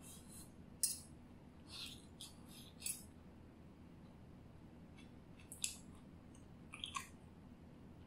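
Close-miked chewing: a handful of short, wet mouth clicks and smacks at uneven intervals while chewing a mouthful of tenderloin beef strip and turmeric rice.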